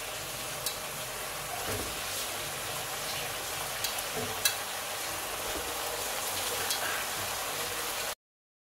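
Spiced masala gravy sizzling in a nonstick wok, a steady hiss broken by a few sharp pops. The sound cuts off suddenly near the end.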